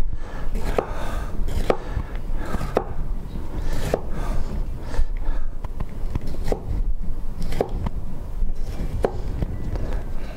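Chef's knife chopping red bell pepper on a cutting board: short knocks of the blade against the board, roughly one a second, slightly irregular.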